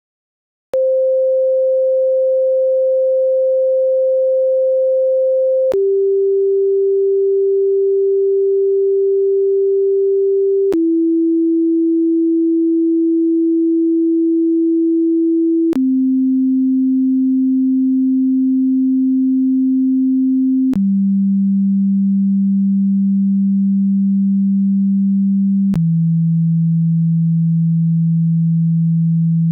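Pure sine-wave test tone from a hearing test, starting about a second in at C5 (523 Hz) and stepping down in pitch every five seconds. It holds six steady notes, down to about 165 Hz, with a slight click at each step.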